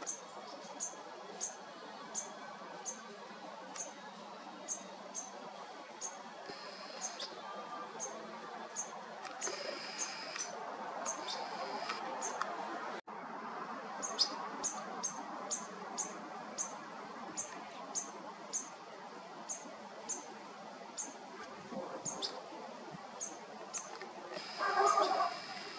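Juvenile European goldfinch repeating a short, high begging call about one and a half times a second, calling to its parents. Near the end a louder, lower burst of sound comes in.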